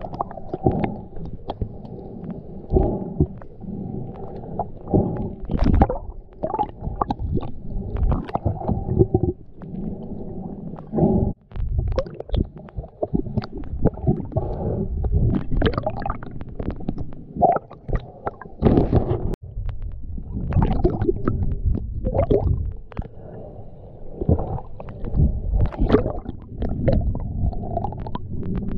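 Muffled underwater rumble of water moving against an action camera's waterproof housing as the diver swims, rising and falling in level, with many short clicks and knocks scattered through it.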